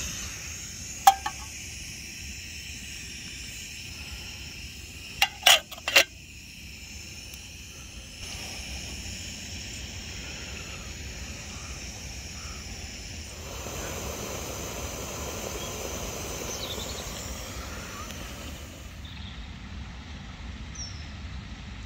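Camping gas stove on a screw-on canister burning with a steady hiss, broken by a sharp click about a second in and a quick run of three sharp clicks around five to six seconds in. After that comes only steady outdoor background noise.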